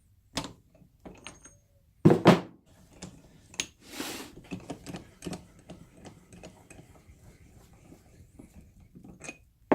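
Metal clunks and clicks from the handle and Acme screw of a milling vise being worked, with a loud double knock about two seconds in, a short scrape about four seconds in, light ticking, and a couple more knocks near the end.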